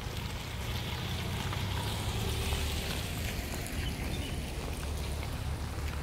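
Outdoor street noise: a car driving past on a wet road, tyre hiss swelling and fading over a steady low rumble.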